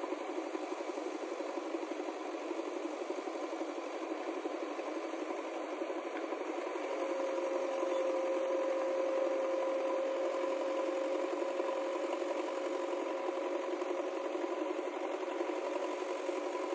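A vehicle engine running steadily with a rattle. A steady hum comes up over it about seven seconds in and holds for several seconds.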